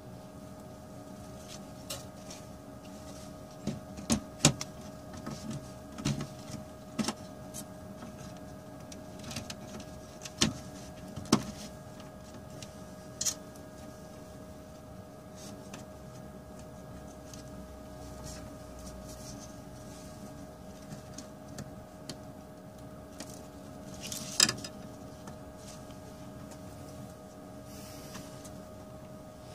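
A laptop motherboard and its plastic bottom case being handled and fitted together, making scattered clicks and knocks. Most come in a cluster in the first half, with one more sharp knock near the end, over a steady background hum.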